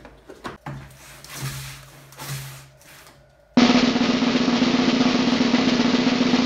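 Knocks and clatter of boxes being handled on a table, then, about three and a half seconds in, a snare drum roll starts abruptly and goes on evenly and loudly: the suspense roll while a winning number is drawn.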